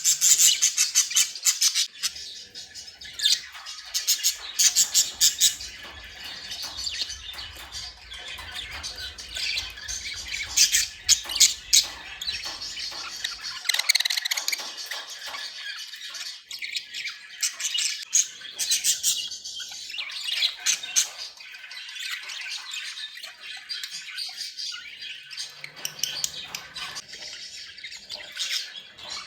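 Budgerigars chattering: a dense, continuous stream of fast chirps, warbles and squawks from several birds.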